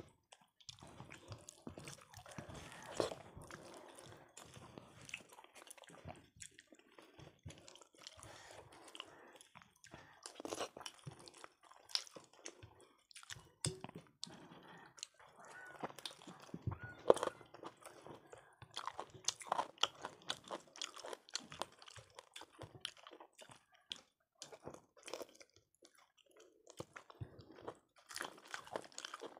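Two people chewing and eating quickly, with irregular wet mouth smacks and clicks and occasional crunches.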